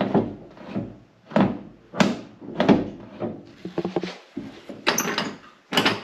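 Truck door latch and outside push-button handle clicking and clunking, several sharp knocks spread through, as the door is tried to test whether it is now locked with its newly fitted lock cylinder.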